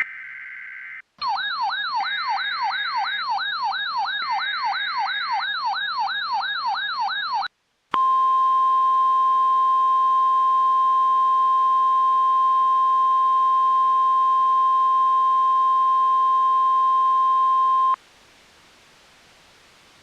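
Emergency Alert System activation: a brief burst of the digital header's two-pitch data tones, then a warbling siren tone that rises and falls about three times a second for some six seconds. After a short break comes the steady 1050 Hz NOAA Weather Radio warning alarm tone, held for about ten seconds, announcing a new flash flood warning.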